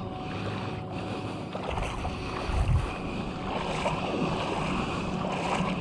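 Shallow water lapping and sloshing, with a brief low buffet of wind on the microphone about two and a half seconds in.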